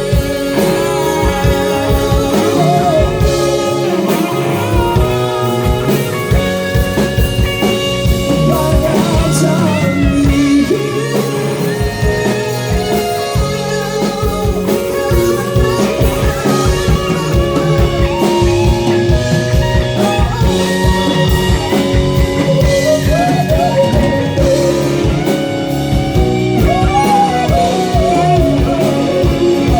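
Live rock band playing an instrumental stretch of a song, electric guitar leading over bass and drum kit.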